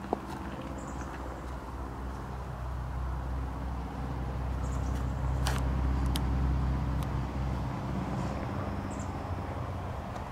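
A motor engine running with a steady low hum that grows louder through the middle and eases off near the end, with a few sharp clicks.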